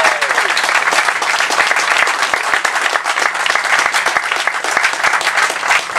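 Crowd applauding: dense, steady clapping from many hands.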